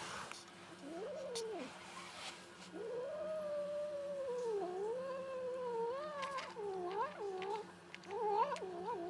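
Domestic cat's low, wavering yowling while it eats and is stroked: a short cry about a second in, then one long drawn-out cry that dips and wavers, then a string of short broken cries near the end. It is the cat's angry protest at being touched while eating.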